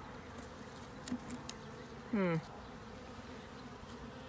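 Honeybees at an open hive buzzing in a steady drone. A brief vocal sound from a person comes about two seconds in, with a few light clicks.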